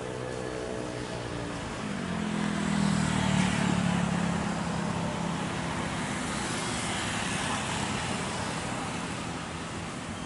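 A vehicle passes by: an engine tone falls in pitch over the first two seconds, then a broad rush of noise swells to its loudest about three and a half seconds in and slowly dies away.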